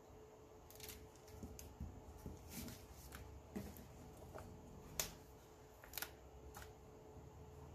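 Faint handling noises of craft supplies on a tabletop: light rustles and taps, with a sharper click about five seconds in and another about a second later.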